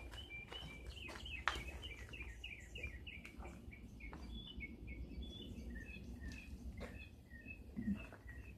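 Small birds chirping, a quick, continuous run of short high chirps, several a second, with a few faint clicks and taps.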